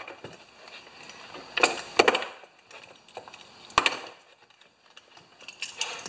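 Small metal C-clamps and hand tools being handled and set down on a wooden workbench as the clamps come off a mower wheel: a few scattered metallic clinks and knocks, about two seconds in, again near four seconds, and a short cluster at the end.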